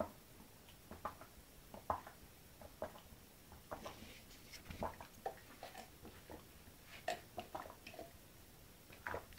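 Faint gulping and swallowing from drinking out of a mug, about one swallow a second at first, then irregular small clicks.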